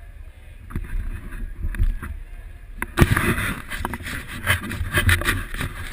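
Handling noise and wind on an action camera's microphone while riding a bicycle: a low rumble with scattered knocks, turning louder and busier with rapid knocks and rustling about three seconds in as the camera is swung around.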